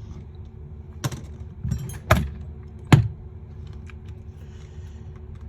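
Small hard tools and parts clicking and knocking on a workbench during a phone screen repair: four sharp clicks about 1, 1.7, 2 and 3 seconds in, the last the loudest, over a steady low hum.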